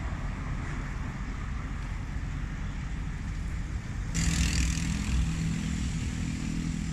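Steady low rumble of outdoor street background, like distant traffic. About four seconds in it changes abruptly to a steady low hum with a hiss over it.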